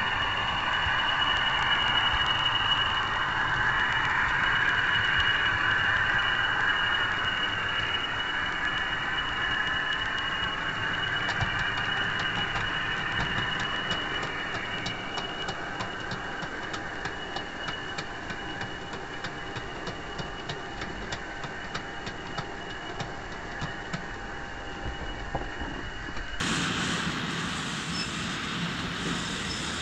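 Running noise of a 4mm-scale model train picked up by a small camera riding on the layout: a steady high whine over a rumble of wheels on track. From about ten seconds in, a quick regular clicking of wheels over the rail joints joins it, and near the end the sound changes abruptly at a cut to other footage.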